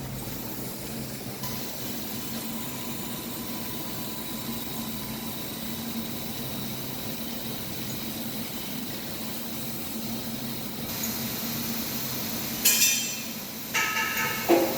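100-watt CNC laser cutter with a rotary attachment running a cutting job on PVC pipe: a steady machine hum, with a thin steady whine coming in about a second and a half in. Near the end, a few short, louder, sharp noises.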